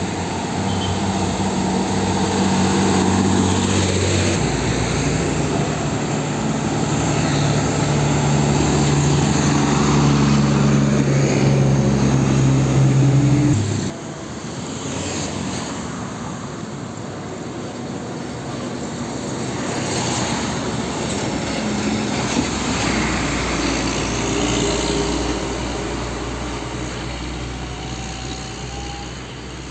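Diesel truck engines driving past: first a cargo truck pulling along with a steady engine drone, then, after a sudden cut about halfway through, a Hino 500 dump truck coming up and driving past with its engine running.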